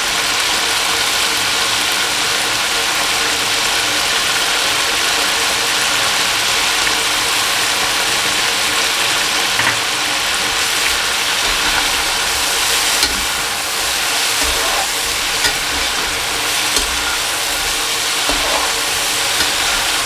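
Chicken pieces frying in hot oil in a kadhai, a steady loud sizzle with a few light clicks in the second half.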